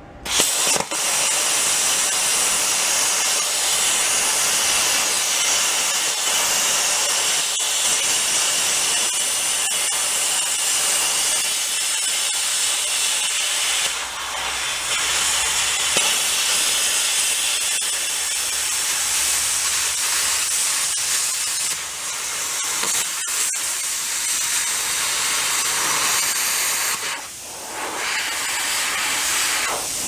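Handheld plasma cutter cutting through the steel of a backhoe thumb, a loud steady hiss from start to finish. It dips briefly about halfway through and more clearly a couple of seconds before the end, as the torch pauses or is repositioned.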